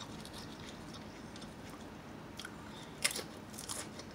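Potato chips being chewed close to the microphone, a faint crackly crunching, with a louder crunch about three seconds in and another just after.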